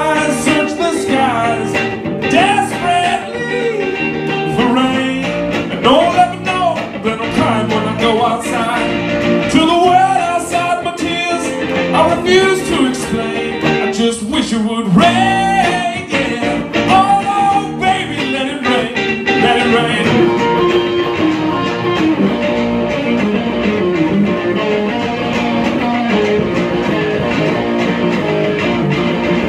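A man singing a song with two electric guitars played live through amplifiers. The singing stops about twenty seconds in and the guitars carry on alone.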